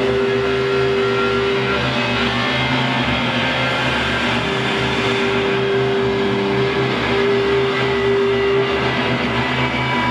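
Live band music: a hollow-body electric guitar and a synthesizer play long held notes over a steady, pulsing low beat.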